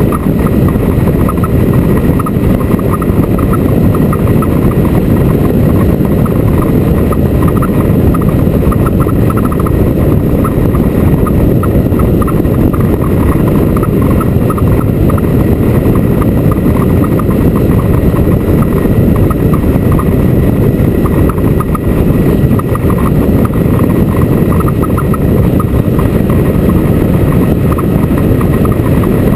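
Motorcycle being ridden at a steady pace, its engine and road noise loud and unchanging.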